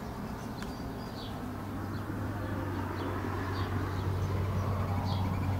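Small birds chirping in short, faint, repeated notes, with doves cooing, over a steady low hum.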